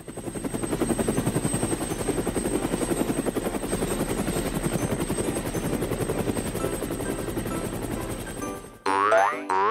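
Cartoon helicopter sound effect: the rapid, steady chopping of rotor blades, fading in at the start and stopping shortly before the end. A quick rising-pitch cartoon sound effect follows near the end.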